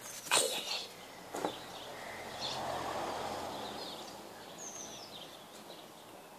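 Outdoor garden ambience: two short rustles in the first second and a half, a soft swell of distant noise in the middle, and faint bird chirps.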